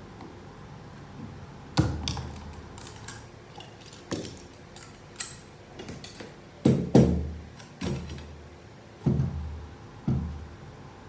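Metal transmission parts knocking and clunking as they are pulled out of the 09G gearbox case and set down, about nine irregular knocks, several ringing briefly, the loudest about seven seconds in.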